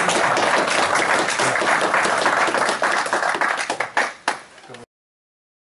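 Audience applauding with a dense patter of claps that thins out near the end to a few last claps, then cuts off suddenly.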